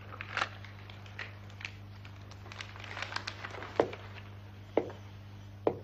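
Quiet room with a steady low hum and scattered soft clicks and taps, with three sharper knocks in the second half.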